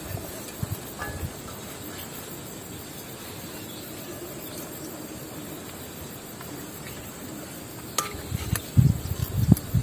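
Insects buzzing steadily in the background with a few small clicks, then loud, irregular low rumbling thumps in the last second or so.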